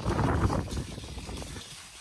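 Cross-country skis and poles scraping and crunching on snow, with wind rumbling on the microphone; loudest in the first half second, then quieter.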